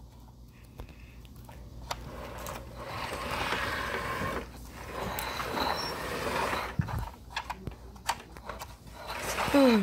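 Handling noise of plush toys and a plastic basket being moved about: a rustling hiss that builds through the middle, with scattered small clicks. A short falling vocal sound just at the end.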